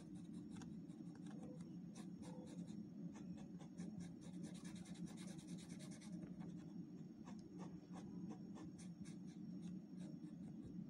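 Felt-tip sketch pen scribbling in quick short strokes on a wooden ice-cream stick, colouring in black. The strokes pack into a dense run of scratching from about four to six seconds in.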